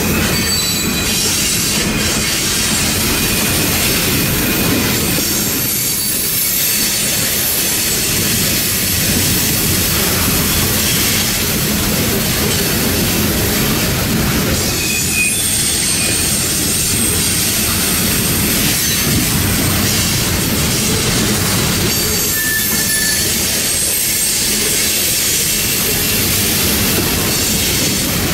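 Iron ore hopper cars of a long freight train rolling past: a steady rumble and clatter of steel wheels on rail, with a few brief high wheel squeals along the way.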